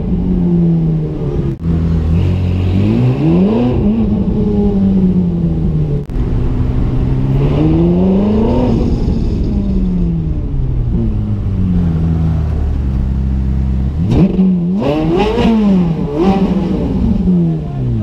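Ferrari F430 Scuderia V8 heard from on board while driving, its revs climbing and falling twice as it accelerates and lifts off. Near the end it gives a quick run of sharp throttle blips.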